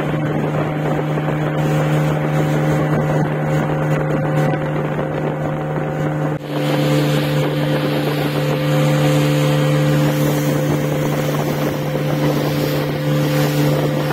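Motorboat engine running at a steady cruising hum, with water rushing and splashing along the hull and wind on the microphone. About six seconds in the sound dips briefly, after which the rushing noise is brighter.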